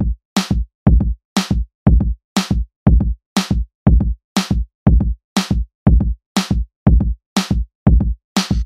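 Background music: an electronic drum-machine beat, a deep kick alternating with a bright snare or clap hit about twice a second, with short silent gaps between hits.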